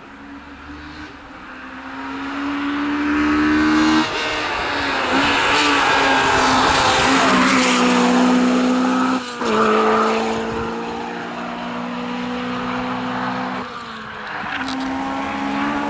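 Rally car at full throttle on a tarmac stage, its engine revving hard with a gear change about 4 s in, another near 9 s and a third near 14 s. It grows loudest with tyre noise as it comes close, about halfway through.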